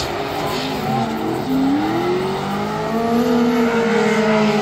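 Drift cars' engines revving hard, their pitch rising through the middle and falling back near the end, over a continuous hiss of spinning, squealing tyres.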